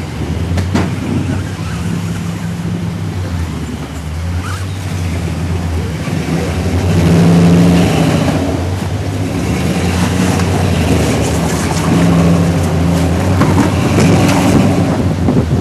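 Engine of a lifted rock-crawling pickup truck working under load as it climbs a rocky ledge, revving up and easing off again and again, loudest about seven seconds in.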